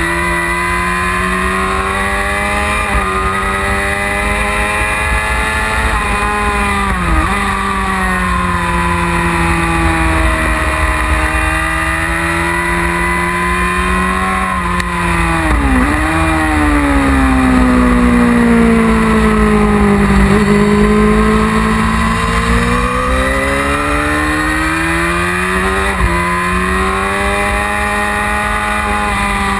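1999 Yamaha R6's inline-four engine heard from onboard at high revs. Its note climbs and falls with the throttle through corners and straights, and dips sharply and briefly at gear changes several times. Heavy wind rumbles on the microphone.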